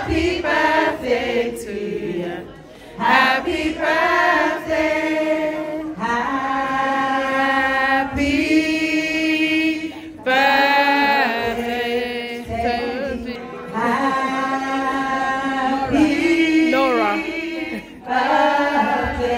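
A group of voices singing a chant-like song, without instruments, in sustained phrases of a few seconds separated by short breaks.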